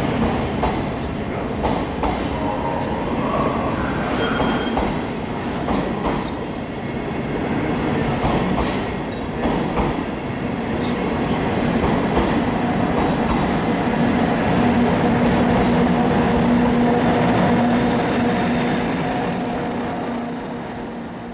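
24-series sleeper coaches rolling slowly past on the rails: a steady rumble with wheels knocking over rail joints now and then and a few brief high wheel squeals. The sound fades near the end.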